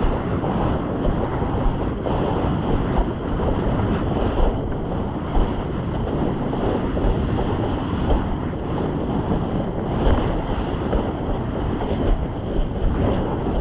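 Wind buffeting the microphone: a steady, heavy rushing noise with small gusts, strongest in the low end.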